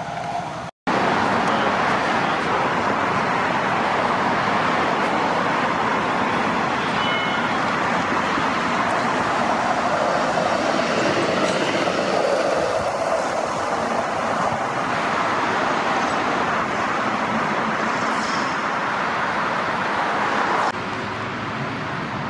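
Busy road traffic: a steady rush of passing vehicles and tyre noise. It starts abruptly after a brief gap of silence about a second in and drops to a lower level near the end.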